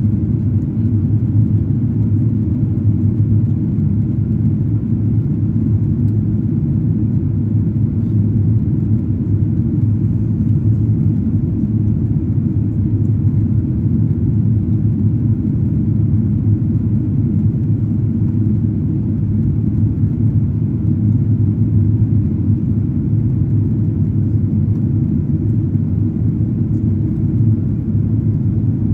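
Steady cabin noise of a Boeing 777-200ER in flight, heard from inside the cabin at a window seat: a low, even rumble of engines and airflow.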